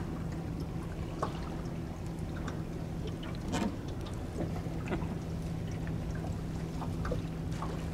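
Water lapping and trickling against a small boat's hull over a steady low hum, with scattered small knocks and clicks.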